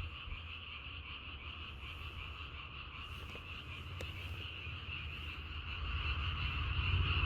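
A chorus of many frogs croaking at night: a dense, steady, pulsing chorus with no single call standing out, growing louder near the end.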